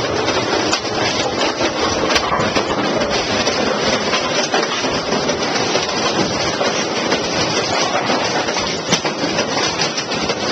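AMF 82-70 automatic bowling pinsetters running: a loud, steady mechanical clatter with scattered clicks and knocks.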